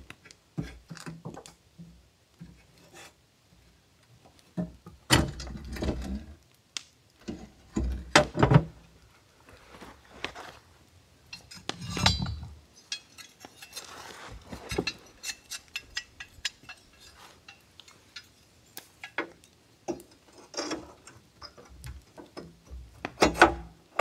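Irregular metallic clanks, knocks and rattles from an old parlour wood stove's thin sheet-metal body and cast-iron parts being handled, with a few louder clusters of clanking.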